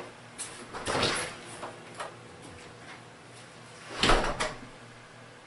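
Footsteps and the handling of a glass-paned entry door, with scattered knocks and a louder clatter about a second in, then the door shut with a thump about four seconds in.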